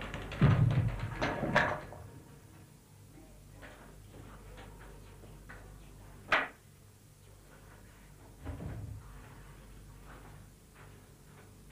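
Knocks and bumps of objects being handled: a cluster of loud knocks in the first two seconds, a single sharp click about six seconds in, and a duller thump about eight and a half seconds in, over a faint low hum.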